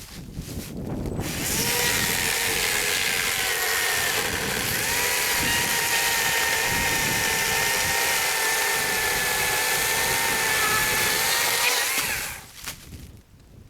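Electric chainsaw running at full speed, cutting wood, with a steady motor whine. It starts about a second in, its pitch dips briefly once partway through, and it stops near the end.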